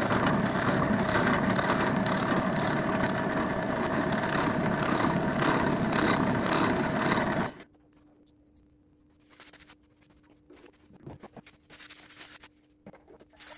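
Milling machine running with a steady hum and a regular high tick about twice a second, stopping abruptly about seven and a half seconds in. Afterwards there is faint rustling from a paper towel being wiped over the machined steel block.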